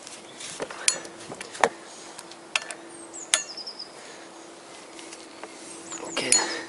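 Steel socket and long bar clinking against the flywheel bolts as the bolts are tightened in turn: a few sharp metallic clicks spaced about a second apart, then a quick cluster of them near the end.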